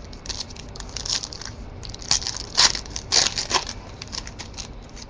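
Plastic wrapper of a Panini Crusade basketball card pack crinkling and tearing as it is opened by hand. There are two bursts of sharp crackles, and the second, about two seconds in, is the louder.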